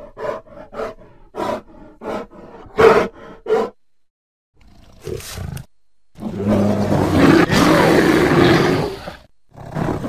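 Giant ground sloth creature voice built from bear, moose and library monster recordings: a run of short pitched grunting calls, about two a second, for the first four seconds, then after a brief pause a short call and a long, loud roar of about three seconds, with a couple of short calls again near the end.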